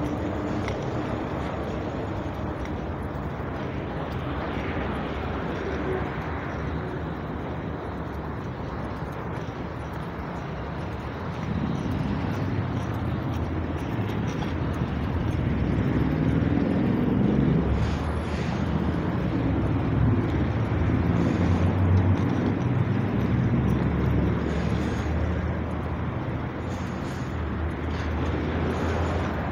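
Metro train running, a steady rumbling noise that grows louder about twelve seconds in and stays so.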